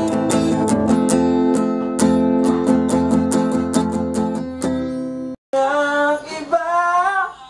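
Acoustic guitar strummed in a steady rhythm, an instrumental stretch between sung lines. About five seconds in it cuts off abruptly, and after a short gap a different passage of music with a sliding, wavering melody follows.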